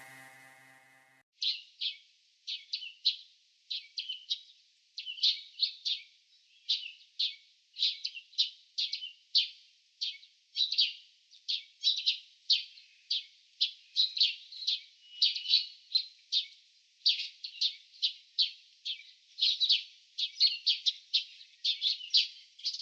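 Bird chirping: short high chirps, several a second in loose clusters, carrying on without a break for about twenty seconds. A faint steady tone dies away just before the chirping starts.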